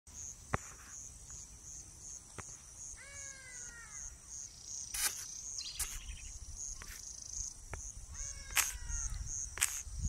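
Insects trilling in a steady pulsing rhythm, with an ibis giving two drawn-out, slightly falling calls, about three seconds in and again near the end, and a few sharp clicks.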